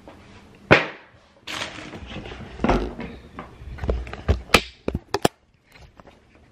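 A cardboard shoe box and its packaging being handled and opened: a sharp knock about a second in, then rustling, several dull thumps and a few quick taps.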